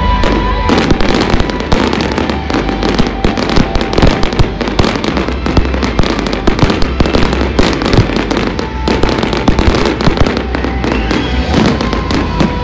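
Aerial fireworks going off in a rapid barrage of dense crackling and bangs over music. The barrage starts about half a second in and thins near the end, when the music comes through again.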